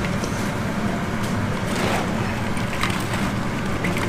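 Wooden spatulas stirring and tossing sticky sauced fried chicken in a large steel wok, a few faint scrapes over a steady rushing noise with a low hum.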